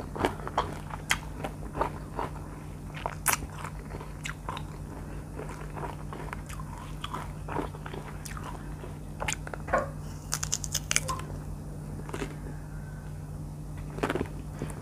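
Close-miked biting and chewing of ripe mango slices: irregular mouth clicks and smacks, with a quick run of clicks about ten seconds in. A low steady hum sits underneath.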